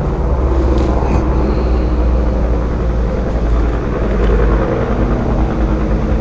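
A motor vehicle's engine running steadily, a low, even drone with no breaks.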